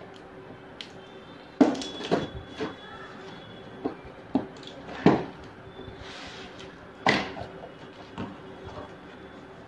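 Cardboard laptop box being opened by hand: a key cutting the packing tape and the flaps being pulled back, heard as a run of sharp knocks and scrapes. The loudest come about a second and a half, five and seven seconds in.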